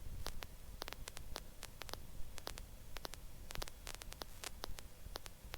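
Faint hiss and irregular crackling clicks on the helicopter's intercom line between radio and cockpit calls, with a low rumble underneath.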